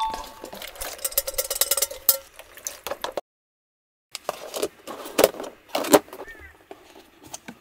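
Dishes and utensils clinking and clattering, with a few brief ringing tones. The sound cuts off abruptly about three seconds in and resumes a second later.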